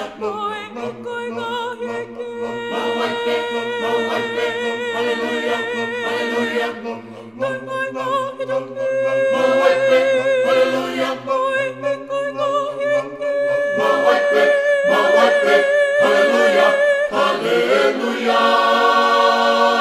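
Tongan a cappella gospel choir singing, with no instruments. The voices hold long notes in harmony with vibrato, and the chord shifts every few seconds.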